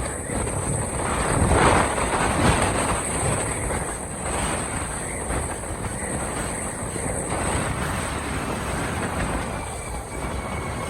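Steady noise of a vehicle in motion, with no clear pitch.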